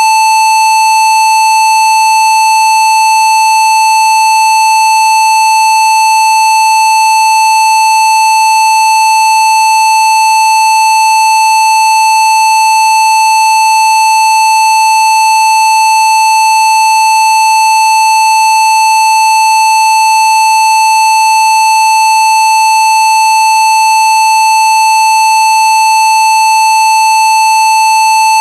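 A steady generated test tone at about 880 Hz, one high pitch held unbroken and unchanging, with fainter overtones above it.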